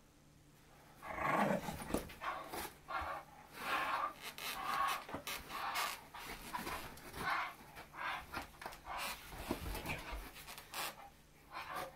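Pit Bull–Lab mix dog panting and vocalising in quick, short, breathy bursts through a rope toy clenched in its teeth while tugging and shaking it. The sounds start about a second in and keep coming in an uneven rhythm.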